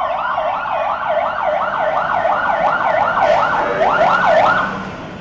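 Electronic ambulance siren in a fast wail, its pitch sweeping up and down about three times a second and fading out near the end.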